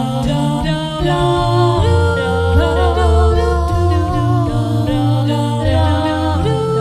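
A cappella vocal music: several voices singing held notes in harmony over a deep bass voice, the notes changing every second or so.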